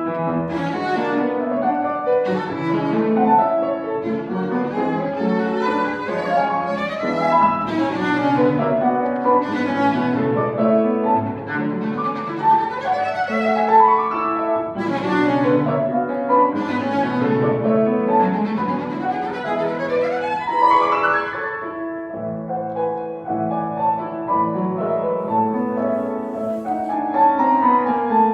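Classical music for bowed strings and piano, played with repeated fast rising runs of notes.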